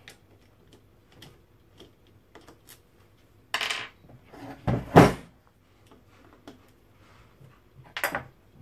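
An electric motor being handled and turned over on a wooden workbench: light clicks and knocks, a scrape about three and a half seconds in, and two heavy thumps around five seconds in, the loudest, as it is shifted and set down, then another short clatter near the end.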